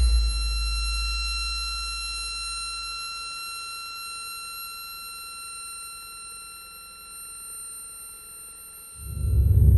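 Electronic noise-music: a deep bass tone at the start fades away over about three seconds under a held cluster of steady, high-pitched whining tones that sound like an alarm. Near the end the whine cuts out and a loud, low droning rumble swells in.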